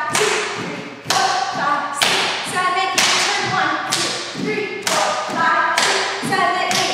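A voice calling out dance counts in a sing-song, over a sharp hit about once a second that keeps the beat.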